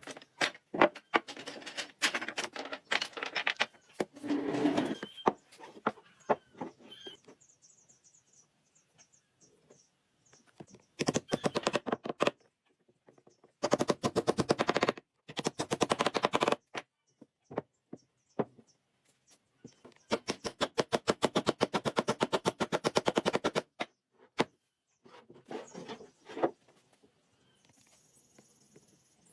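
A woodworking power tool hammering in bursts of rapid knocks, many strikes a second. Each burst lasts one to three seconds, with scattered single knocks in between.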